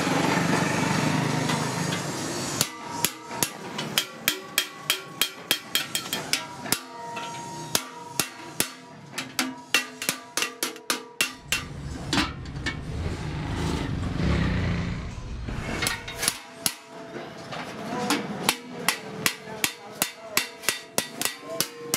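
Small hammer tapping rivets that fix a steel hinge strip to a galvanized sheet-metal cylinder: quick ringing metallic strikes, about two to three a second. The strikes stop for several seconds near the middle, when a low rumble takes over, then start again.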